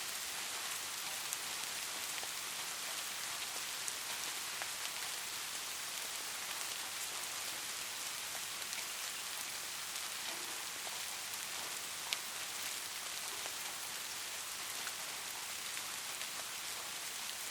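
Steady rain falling on a hard surface: a continuous hiss with scattered sharp ticks of single drops, one louder drop about twelve seconds in. No thunder is heard.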